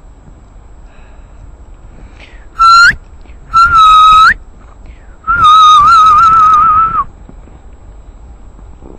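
A person whistling three loud notes close to the microphone, likely calling the puppy: two short ones that each sweep upward at the end, then a longer wavering one.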